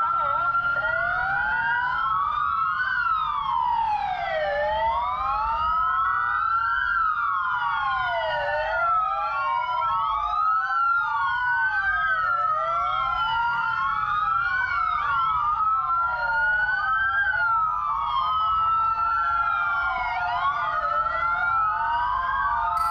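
Several emergency-vehicle sirens sounding at once, their wails sweeping up and down in pitch and crossing one another over a steady low vehicle rumble, as rescue vehicles respond to a house fire.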